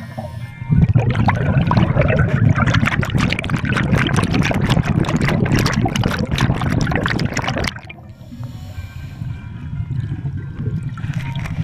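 A scuba diver's exhaled breath bubbling out of the regulator underwater, heard as a loud, crackling rush of bubbles. It starts about a second in, lasts about seven seconds and stops abruptly, leaving a quieter low underwater hum.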